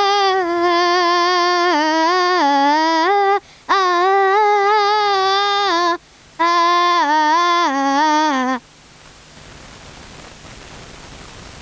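A young girl singing unaccompanied into a handheld microphone: three long, held phrases with bends and turns in pitch, the last falling away. The singing stops about three-quarters of the way through, leaving only a steady hiss.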